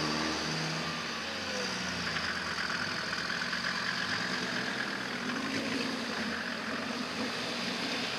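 Off-road 4x4's engine running under load in a deep mud pit, its pitch rising and falling as the driver works the throttle.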